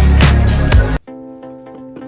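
Background electronic music with heavy bass and a beat of about two hits a second, which cuts off abruptly about halfway through. A much quieter plucked melody carries on after it.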